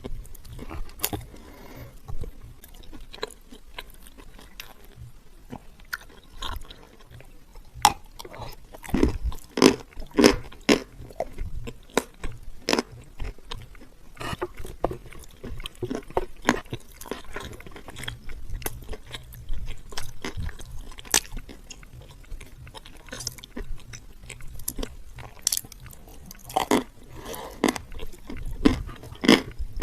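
Close-miked biting and chewing of dry, crumbly edible clay: sharp crunches come in irregular clusters, densest about a third of the way in and again near the end, with quieter chewing between.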